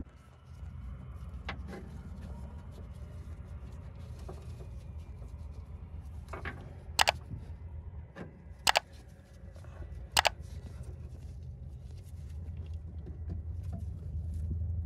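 A jack being pumped by hand to press an old rubber front subframe bushing out of its bracket, giving three sharp clicks about a second and a half apart over a steady low hum.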